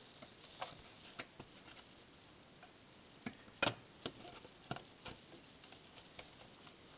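Faint scattered clicks and taps as a Lexmark Optra drum cartridge's charge roller is pressed into its plastic holders, about eight in all, the loudest a little past halfway.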